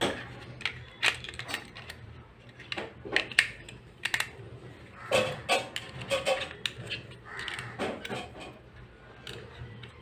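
Irregular clicks and taps of a small plastic remote-control handset being handled, as a 23A 12V battery is pressed into its battery compartment and the sliding cover is fitted back on.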